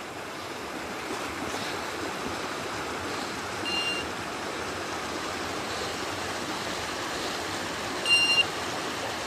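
Steady rushing noise, with two short high electronic beeps, about 4 and 8 seconds in, the second one louder.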